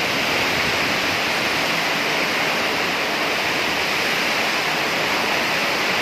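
Heavy rain falling in a steady downpour, an even hiss.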